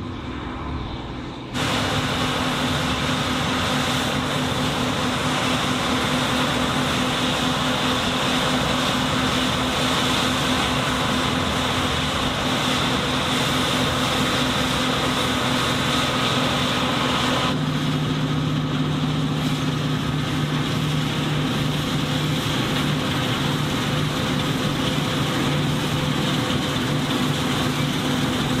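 John Deere W540 combine harvester running steadily: engine hum with the whir of its threshing machinery. The sound jumps louder about a second and a half in and changes tone a little past the middle.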